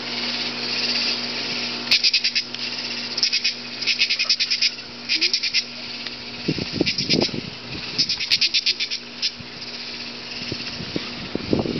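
Katydid calling in loud bursts of rapid buzzy pulses, each burst about half a second, repeated irregularly over a steady high hiss of insects. About two-thirds of the way through, a puppy sniffs close by.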